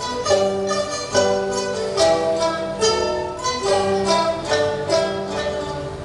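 Chinese orchestra playing live: a steady run of short struck and plucked notes from yangqin (hammered dulcimer) and pipa over held notes from the strings.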